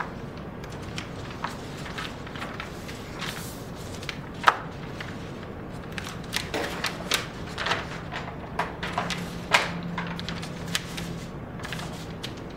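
Sheets of newspaper rustling as they are pulled apart, unfolded and smoothed flat on a table, in scattered short rustles with two sharper crackles, about four seconds in and again near ten seconds.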